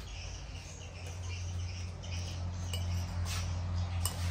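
A metal spoon clinking against a ceramic plate, twice near the end, over a steady low hum.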